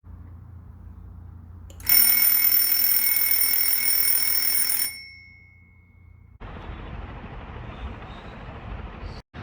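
Alarm clock bell ringing loudly for about three seconds, then stopping abruptly with a brief ring-out. A steady hiss follows near the end.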